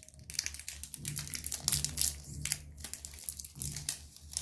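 Metal spoon stirring and scraping inside a stainless steel kettle as powdered stock is mixed into water, giving irregular clicks and scrapes over a low steady hum.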